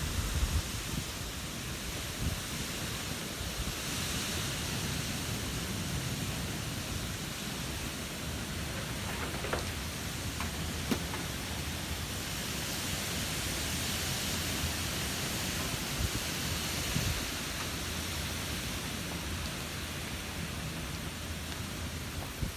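Wind blowing, a steady rushing hiss over a low, unsteady rumble, swelling in gusts a few seconds in and again in the middle.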